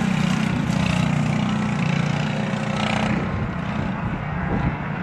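Racing go-kart engine running hard as the kart passes along the track, with a steady buzzing note that fades somewhat about three seconds in as the kart pulls away.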